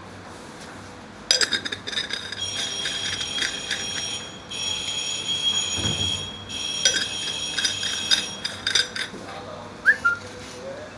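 Stainless-steel dyeing beaker lids being twisted and handled: a high metallic squeal of metal scraping on metal, in stretches of one to two seconds, broken by clicks and clinks of steel parts knocking together.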